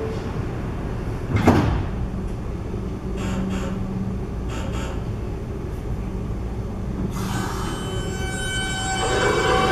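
Doors on an NYC Subway R160 train slide shut with a sharp thud about a second and a half in, followed by a few fainter knocks. Near the end, the train's electric traction motors start up with a whine of several tones that grows louder as it begins to pull out.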